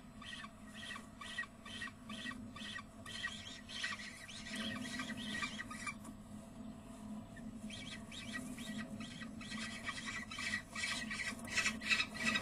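Peregrine falcon chicks begging at a feeding with rapid, repeated high squealing calls. The calls stop for about a second and a half in the middle, then resume and are loudest near the end, over a steady low hum.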